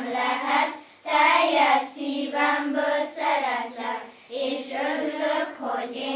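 A group of children singing a Hungarian song together in unison. There are two short breaks between phrases, about a second in and again a little after four seconds.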